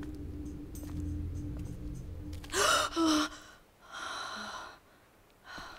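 A woman's sharp startled gasp, two quick intakes of breath about two and a half seconds in, followed by two softer breaths. Under the first half, a low steady music drone fades out just after the gasp.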